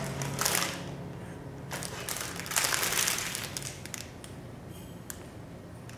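Cardboard box and product packaging rustling and crinkling as an item is pulled out and handled. There are two bouts of rustling, the louder about two and a half seconds in, and a faint click near the end.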